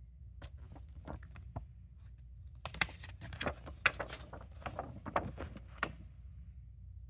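Glossy paper promotional cards being handled and flipped over: a few light clicks, then a dense run of crackling paper rustles for about three seconds in the middle.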